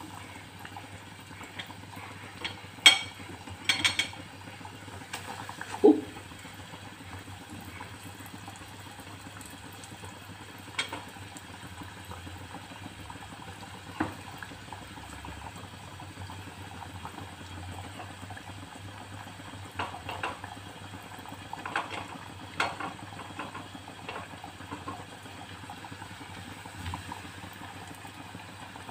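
Flour-coated elephant yam slices deep-frying in a saucepan of hot oil, a steady bubbling sizzle. Sharp clinks and taps come now and then, the loudest within the first six seconds.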